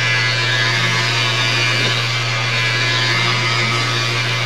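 A steady low hum under a constant rushing noise, unchanging throughout.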